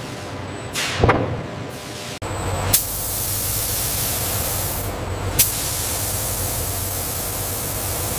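Automated spray nozzle hissing steadily as it sprays a finishing coat onto leather, starting suddenly a little over two and a half seconds in. A short burst of hiss about a second in comes before it.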